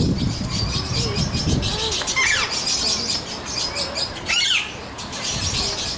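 A group of birds chirping rapidly and continuously, with two louder downward-gliding calls about two seconds in and again about four and a half seconds in.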